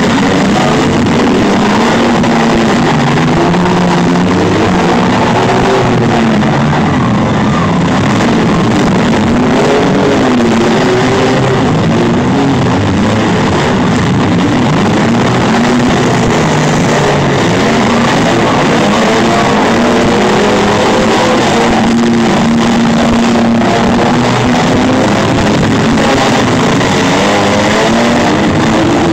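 Engines of several demolition derby mini-vans, trucks and SUVs running and revving hard at once, a loud, continuous din whose pitches keep rising and falling.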